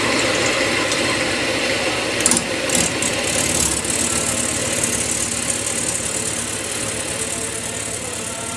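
Wood lathe running with a walnut bowl spinning on it, giving a steady rushing hiss, with a few brief clicks between about two and three seconds in.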